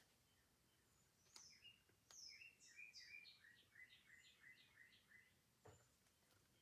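Faint bird song in a quiet room: a run of about a dozen quick, downward-slurred chirps that step lower in pitch, with a faint click about a second in and another near the end.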